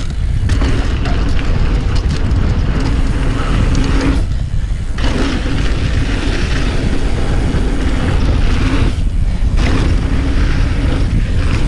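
Mountain bike descending a dirt trail at speed: wind buffeting the action-camera microphone over tyre and trail rumble, with a steady low hum. The noise dips briefly twice, about four and nine seconds in.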